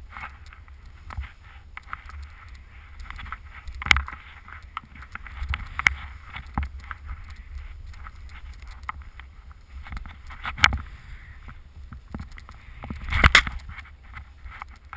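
Skis hissing and scraping through powder snow during turns, with a low steady rumble of wind on the microphone. Several sharp knocks break through, and the loudest burst of scraping comes near the end during a deep turn that sprays snow.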